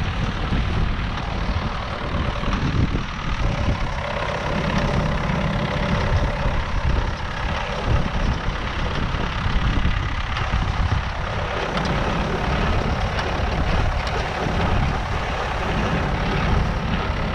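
A steady engine or motor running, with wind buffeting the microphone.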